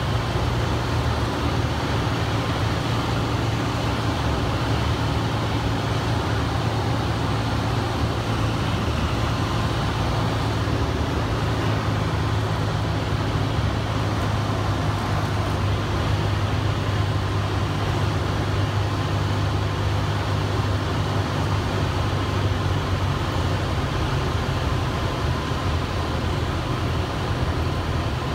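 Single-engine piston airplane's engine and propeller droning steadily, heard inside the cockpit, at low approach power on final with flaps down.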